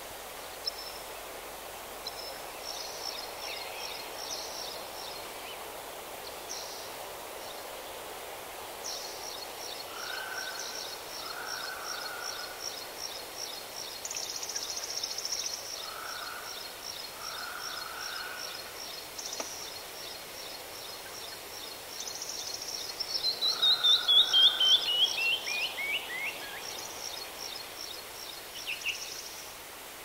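Songbirds singing over a steady background hiss: a long run of quick, evenly repeated high notes, and about three-quarters of the way in a loud series of notes that falls in pitch and speeds up.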